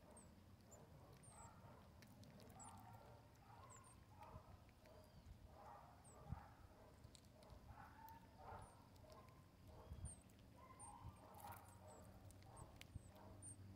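Marmosets feeding give faint, very short, high-pitched chirps, a dozen or so scattered irregularly. Soft clicks and rustles sound beneath them.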